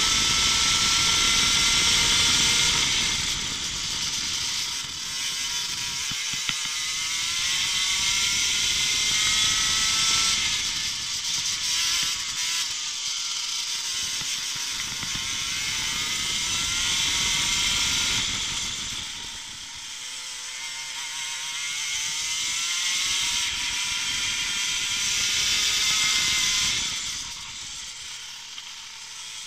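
Racing kart engine at full race pace, its pitch climbing steadily down the straights and falling away each time the driver lifts for a corner, several times over. Wind rushes over the microphone throughout.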